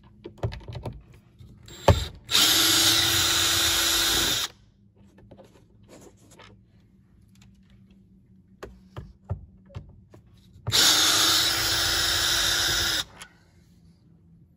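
Cordless drill driving out the T15 Torx screws that hold a sun visor bracket to the headliner. The drill runs twice, about two seconds each time: once a couple of seconds in, and again near the end. A sharp click comes just before the first run, with small handling clicks between the runs.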